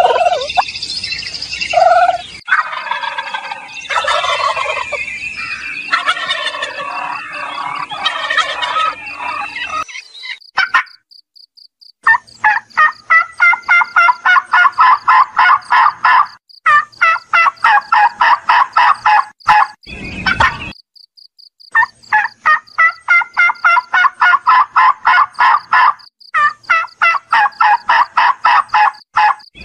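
Domestic turkeys calling, then gobbling: after a first stretch of mixed calls and chirps, long runs of rapid rattling gobbles follow one another with short breaks between them.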